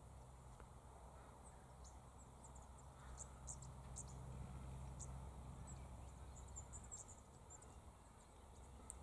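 Near silence: faint outdoor ambience with scattered brief high chirps and ticks over a low steady hum.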